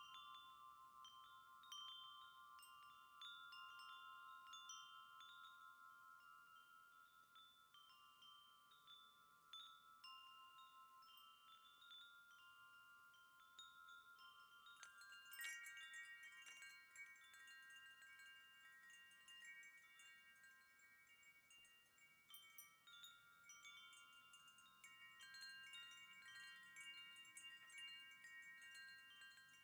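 Wind chime ringing faintly. Repeated strikes leave several sustained, overlapping tones hanging, and a busier flurry of strikes with brighter clinks comes about halfway through.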